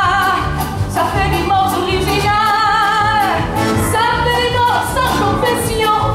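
A woman singing a French chanson with vibrato, accompanied live by keyboard and upright double bass. She holds a long wavering note in the middle and slides down in pitch near the end.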